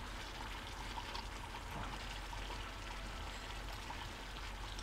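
Chicken karahi gravy simmering and frying in a steel kadhai over a high gas flame: a steady bubbling hiss with scattered small pops.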